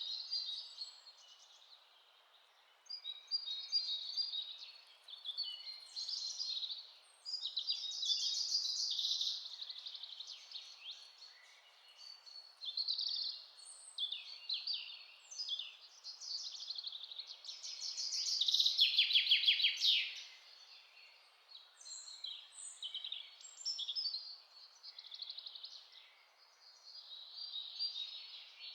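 Several songbirds chirping and singing in quick phrases over a faint steady hiss, with a loud fast trill about two-thirds of the way through.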